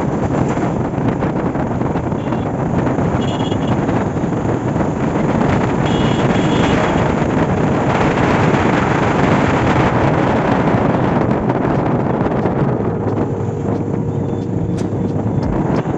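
Steady, loud rushing noise of wind buffeting the microphone.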